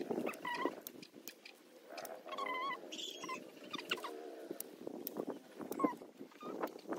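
Scissors snipping twigs and leaves from mulberry cuttings, a few sharp clicks. An animal, heard several times, gives short wavering cries.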